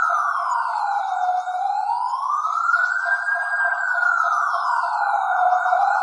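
Police siren wail, one continuous tone sliding slowly down and up, with a low point about every four seconds.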